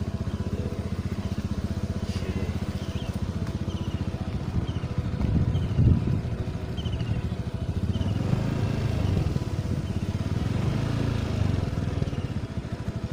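Motorcycle engine running at low speed, a steady pulsing rumble that swells a little around the middle. A series of short, high, falling chirps repeats about twice a second over the first half.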